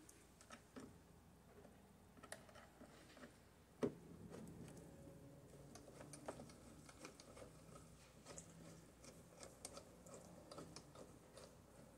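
Faint small clicks and taps of a hand screwdriver turning a screw into a sun visor's mounting bracket, with one sharper knock about four seconds in.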